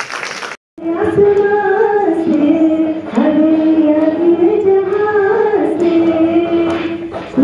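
A woman singing solo into a microphone, holding long notes that step up and down in pitch. It follows a short burst of noise at the very start that cuts off abruptly.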